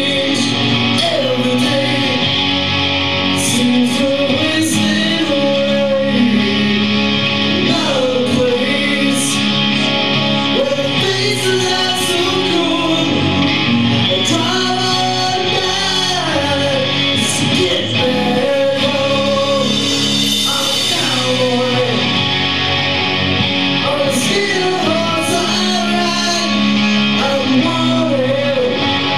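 A live rock band playing with electric guitar and drums while a singer sings the melody, with cymbal crashes cutting through every few seconds.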